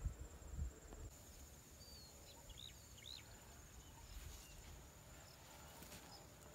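Faint field ambience: a steady, high-pitched insect trill, with a few short bird chirps about two to three seconds in. Low rumble in the first second.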